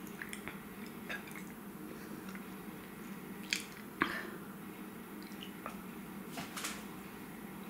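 Mouth sounds of someone chewing a piece of filled chocolate candy: wet squishing and soft smacking clicks, with two sharper clicks about three and a half and four seconds in. A steady low hum runs underneath.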